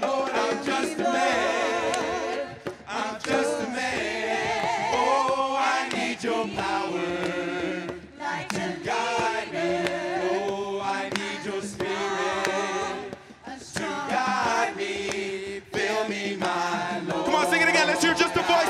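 Voices singing a worship song a cappella in harmony, in phrases with wavering held notes and brief breaks between lines.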